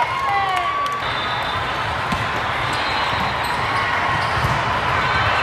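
Steady din of a large exhibit hall full of indoor volleyball games: a wash of distant voices and shouts with scattered low thuds of balls and feet on the courts.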